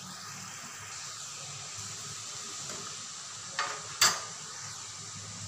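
Murukku dough deep-frying in hot oil in an aluminium kadai: a steady sizzle of bubbling oil. About three and a half seconds in come two sharp metallic clinks, the second the louder, as utensils knock against a steel tray.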